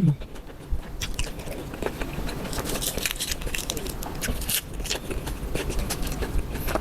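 A person biting and chewing food close to the microphone, with many irregular crisp crunches and clicks.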